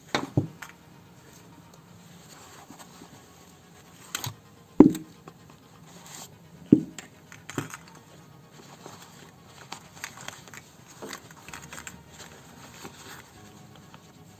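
Handling noises from a plastic airsoft replica grenade and grenade pouches: scattered knocks, the sharpest about five and seven seconds in, with light scraping and rustling between.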